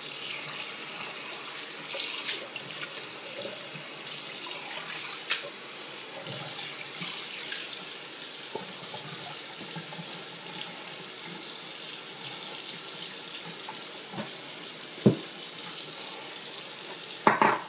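Tap water running steadily into a bathroom sink while a shaving bowl is rinsed under it, with a few sharp knocks, the loudest two near the end.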